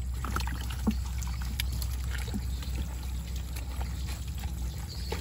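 Gloved hands sloshing through shallow muddy water while groping for fish, with scattered small splashes and trickles.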